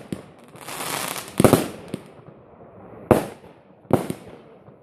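Aerial fireworks bursting: a crackling hiss swells, then three loud bangs, the first about a second and a half in and two more close together later, each trailing off with an echo.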